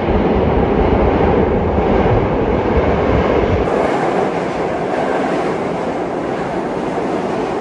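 New York City subway B train (R68-series cars) running into the station past the platform: a loud, steady rumble and clatter of steel wheels on the rails. The deep low rumble drops out suddenly a little before halfway.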